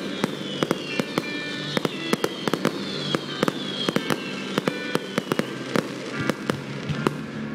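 Fireworks display: a rapid, continuous run of sharp cracks and pops from bursting shells, with a high whistle slowly falling in pitch over several seconds.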